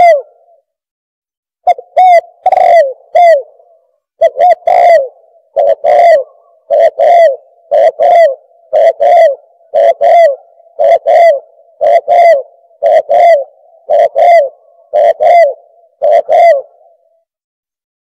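Spotted dove cooing song: a long run of short, arched coo notes repeated about once or twice a second in short phrases. It begins after a short pause and stops about a second before the end.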